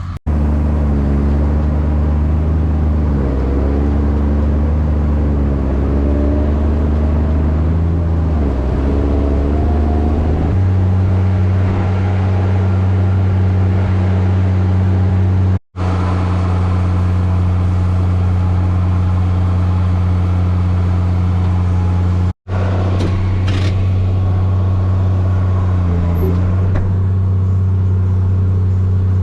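A vehicle engine running loud and steady, its pitch wandering up and down over the first ten seconds, then holding even. The sound drops out abruptly for an instant twice, at about 16 and 22 seconds in.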